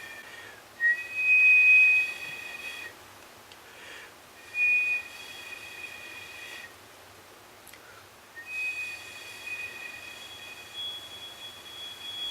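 A person whistling through the mouth: long, held, high pure notes broken by short pauses. The whistle is scooped upward so that it skips into a higher register, with a still higher pitch coming in near the end.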